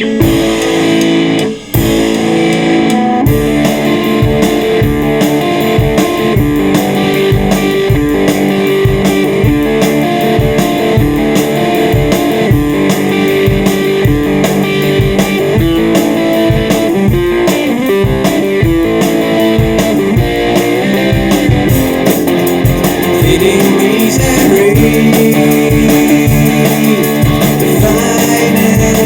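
Instrumental break in a blues-rock song: electric guitar playing over a steady drum beat.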